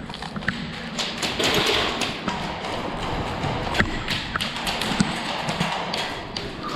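Irregular sharp taps and thuds, scattered unevenly over a noisy background.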